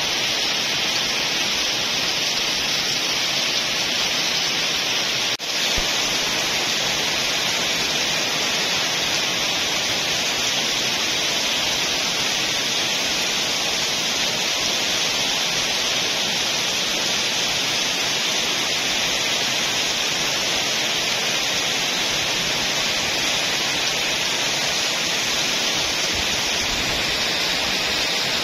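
Heavy rain pouring down in a steady, dense hiss, with a momentary dip in level about five seconds in.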